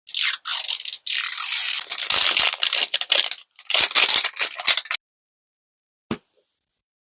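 Crinkling and tearing of plastic toy packaging as it is unwrapped, in rapid crackling bursts for about five seconds, then a single short click.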